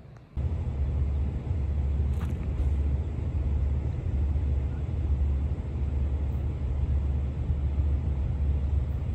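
Steady low rumble of an approaching freight train's diesel locomotives, NS 22X's ES44AC and SD70ACe units. It comes in suddenly about half a second in.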